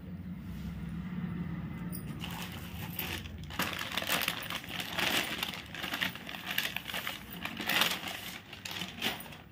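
Cloth rustling and crackling as a suit is lifted and unfolded by hand, starting about two seconds in, with metal bangles clinking.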